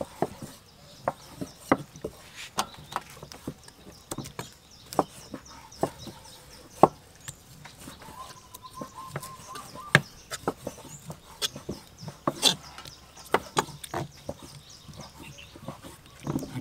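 Kitchen knife cutting raw chicken breast on a thick wooden chopping block: irregular sharp taps as the blade goes through the meat and knocks the board.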